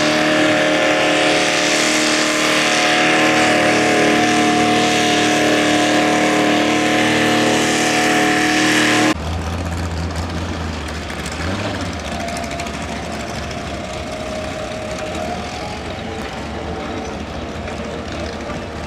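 Pulling tractor's engine running loud at a steady speed, cutting off abruptly about nine seconds in. After that comes a quieter, lower diesel rumble from the heavy equipment working the track, a wheel loader and tractors.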